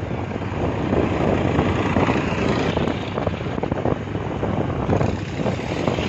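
Steady road noise from a moving vehicle: engine running with wind buffeting the microphone.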